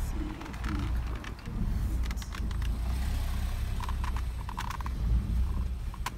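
Car engine and tyre rumble heard from inside the cabin as the car moves at low speed, with scattered small clicks and ticks over it.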